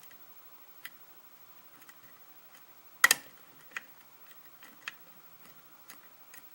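Lock pick and tension wrench working the pins of a Kwikset-keyway pin-tumbler lock: scattered light metallic clicks, the sharpest about three seconds in.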